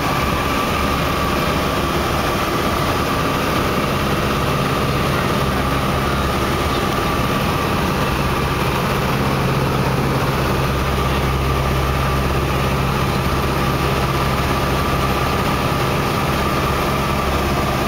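Light airplane's engine and propeller heard from inside the cabin in flight: a loud, steady drone with a low hum, holding an even level throughout.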